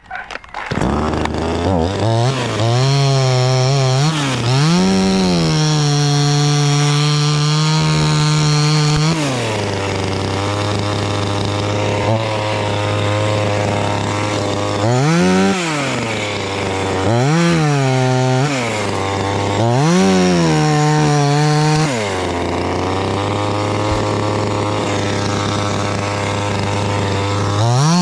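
Chainsaw running under the throttle. It comes in about half a second in, then revs up and eases off again and again, holding high speed for a few seconds at a time, as when working through a cut in a tree.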